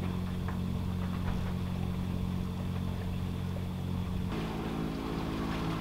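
Boat engine running steadily with a low, even drone; its tone shifts a little about four seconds in.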